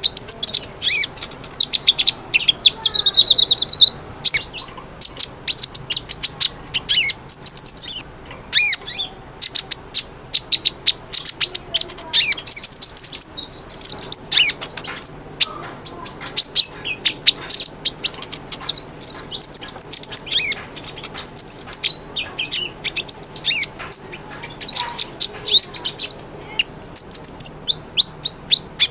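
Kolibri ninja sunbird singing continuously: rapid, high-pitched chirps and quick trills in phrases with short gaps.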